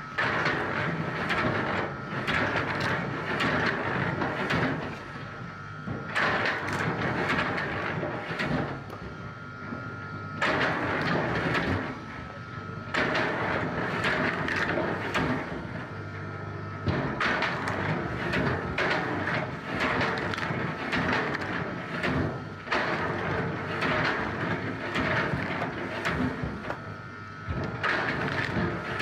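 Wood-processing machinery running under load, with a dense mechanical clatter and a steady whine through much of it. The sound changes abruptly every few seconds.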